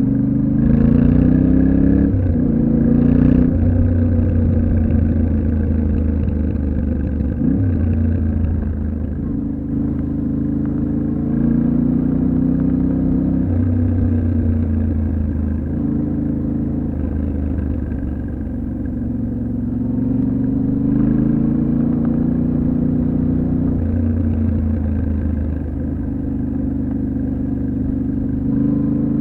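Yamaha Ténéré 700's parallel-twin engine under way off-road, its pitch climbing under throttle and then dropping back, over and over, as the rider accelerates and shifts. A few short knocks come through near the start.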